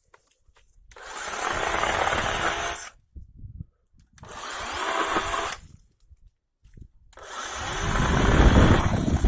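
Parkside 20 V cordless electric chainsaw running in three bursts as it cuts branches: about two seconds, then a shorter one, then a longer, loudest one near the end.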